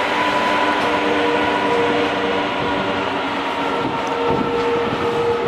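Container freight train's wagons rolling past on an elevated line: a steady rolling rumble with a few held whining tones over it.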